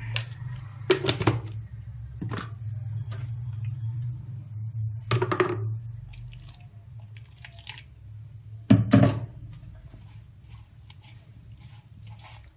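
Handling knocks, the loudest about nine seconds in, as water is poured from a plastic container into a plastic bowl of spice powders, then a hand mixing the wet spice marinade with quick soft squishing clicks near the end. A steady low hum underlies it.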